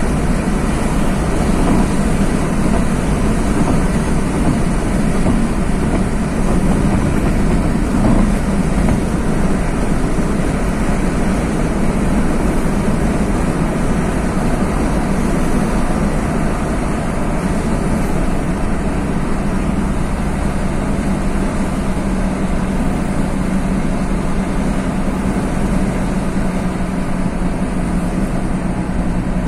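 Car driving at a steady speed, its engine and tyre noise heard from inside the cabin as a steady low drone.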